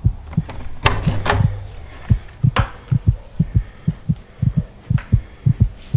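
Quick footsteps thudding on a floor, about three to four steps a second, with a few sharper knocks in the first couple of seconds.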